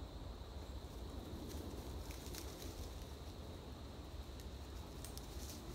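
Footsteps crunching and rustling through dry leaf litter in irregular short crackles, over a faint steady high-pitched tone.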